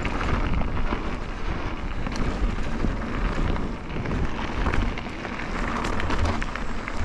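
Canyon Neuron trail mountain bike being ridden over a rough dirt and rock trail: a steady rumble of tyres and wind buffeting the microphone, with frequent small clicks and knocks as the bike rattles over the ground.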